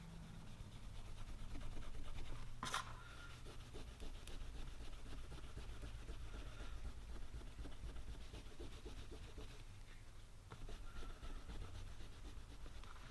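Faint rubbing and scratching of a polishing cloth worked by hand over a small brass tag, with one sharp click about three seconds in.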